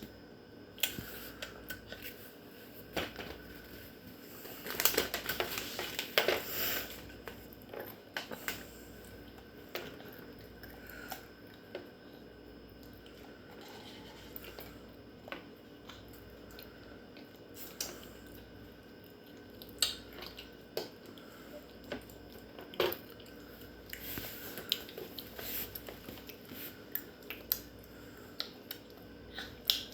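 A toddler eating chips: scattered crunches and crisp crackles of chewing and biting, with now and then a small clatter of dish or container.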